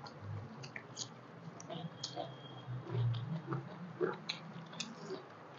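Soft eating sounds: fingers mixing rice and mashed bharta on a banana leaf, and mouths chewing, with scattered small wet clicks and smacks.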